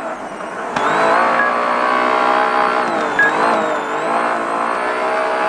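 Can-Am side-by-side race UTV engine running hard under load, heard from inside the cab. It gets louder about a second in, and its pitch dips and climbs back a couple of times around the middle.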